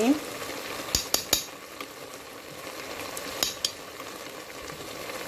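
Liver curry sizzling in the pot as yogurt is added, with a few sharp taps of a spoon: three about a second in and two more a little past three seconds.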